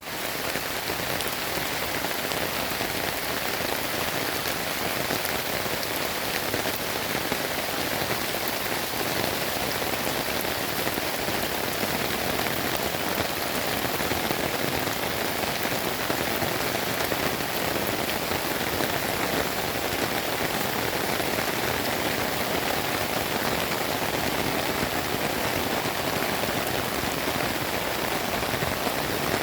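Steady heavy rain falling and pattering on surfaces, a dense even hiss that holds at one level throughout.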